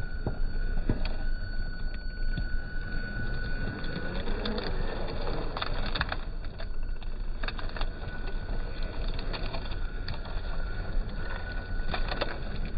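RC scale crawler truck's electric drive whining steadily at a slow crawl up a rock, the whine stopping for a few seconds in the middle, with the tyres knocking and scraping on the rock in scattered clicks.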